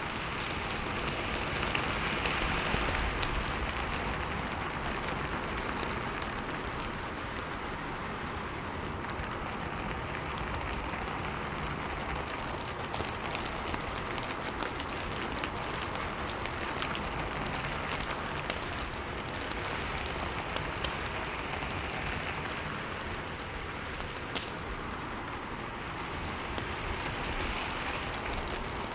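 Steady rain with a crackling fireplace: an even hiss of rain that swells and eases every several seconds, scattered with small pops and crackles.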